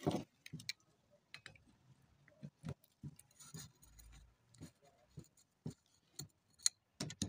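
Faint, irregular light clicks and taps of a ratchet wrench tightening the bolts on a BMW M52 oil pump, the loudest click right at the start.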